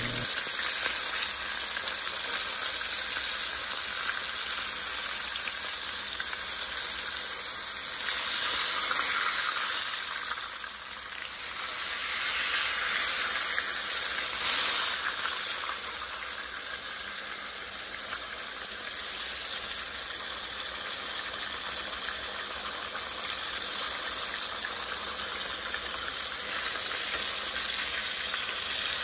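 Floured beef liver deep frying in hot oil: a steady sizzle, swelling briefly about eight seconds in and again about fourteen seconds in.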